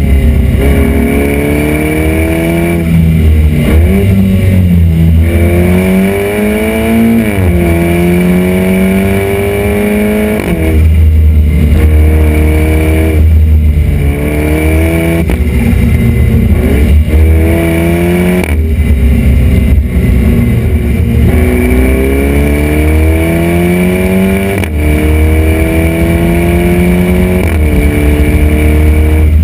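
KTM X-Bow's turbocharged four-cylinder engine heard right at its custom black stainless-steel exhaust while driving. The exhaust note climbs again and again as the car accelerates and falls back between pulls, loud throughout.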